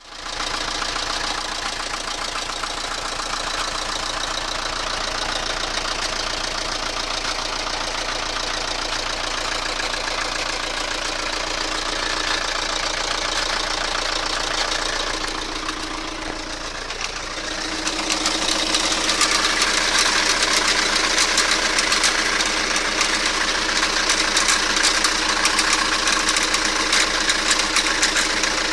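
Toyota Carina engine running with a metallic knock from the crankcase area, a rapid steady ticking over the engine note. About two-thirds of the way through the sound gets louder and the knocking more pronounced.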